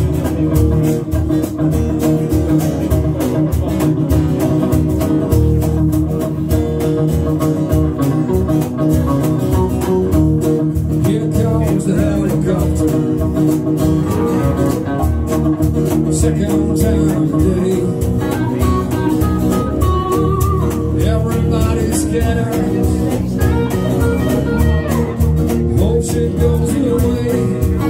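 Small live band playing a song: strummed acoustic guitar with electric bass and electric guitar.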